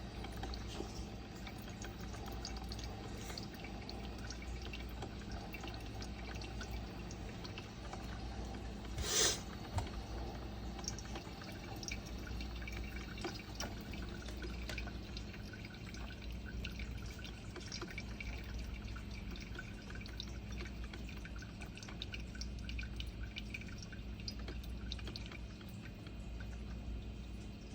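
Hamilton Beach 12-cup programmable drip coffee maker brewing, with hot coffee dripping and trickling into the carafe in small scattered ticks over a steady low hum. A brief louder noise comes about nine seconds in.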